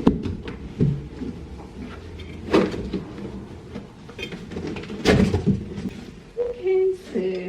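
Knocks and handling noise from a microwave and its packaging being unboxed: three sharp knocks about two and a half seconds apart, the last the loudest, with low rumbling between.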